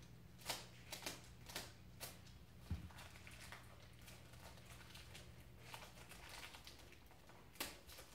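Small toy accessories and their packaging handled in the hands: a scatter of faint sharp clicks and rustles, most of them in the first two seconds and one more near the end, with a soft thump about two and a half seconds in.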